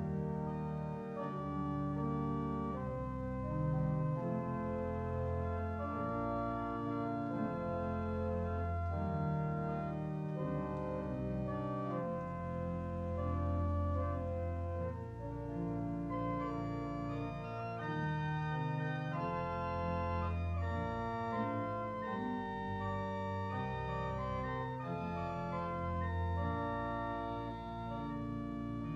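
Organ playing a slow instrumental piece of sustained chords over a low bass line, the notes changing every second or two.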